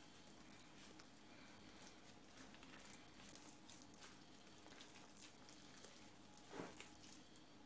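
Faint crackling and rustling of a hand mixing flour and wet ingredients into dough in a plastic bowl, with one slightly louder rustle near the end.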